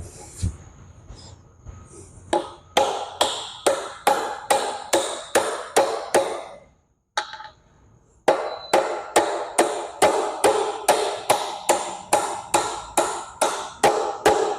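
Steady hammer blows on metal, about two and a half a second with a ringing tone, driving a U-joint bearing cap into the driveshaft yoke until it bottoms out. The blows stop for about a second and a half in the middle, then start again.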